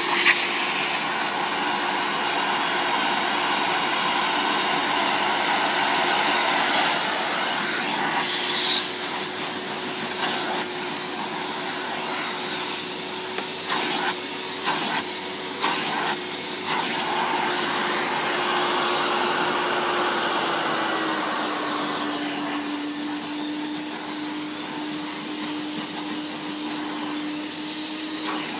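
Hoover Alpina 2 cylinder vacuum cleaner running with a steady motor whine under a rushing air noise. The whine drops slightly in pitch about two-thirds of the way through, and there are several short surges of hissing air.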